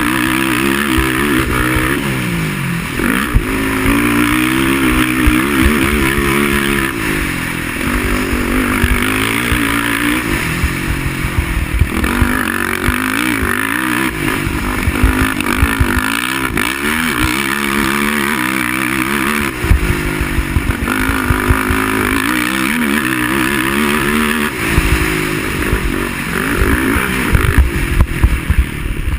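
Racing quad (ATV) engine running hard, its pitch rising and falling again and again as the rider accelerates and backs off.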